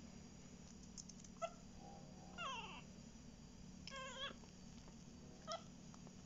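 Chihuahua puppy whining in four short, high-pitched cries; the second slides down in pitch.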